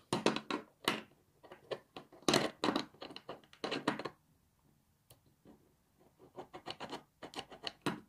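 Small metal parts of a mortise door lock being handled and fitted back into its steel case: a run of clicks, scrapes and light knocks of metal on metal, with a lull of about two seconds midway.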